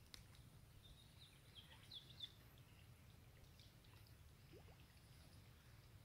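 Near silence: faint outdoor ambience with a steady low rumble and a few faint, short high chirps about one to two seconds in.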